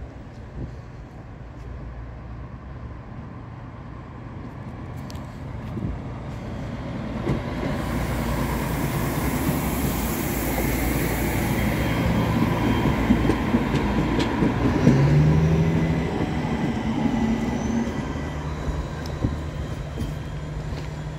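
Stadler CityLink low-floor hybrid tram-train passing on a test run: its running noise builds as it comes near, is loudest as it goes by, and fades as it pulls away. A steady low hum from the unit rises in pitch a little past the middle, with a few wheel clicks on the track.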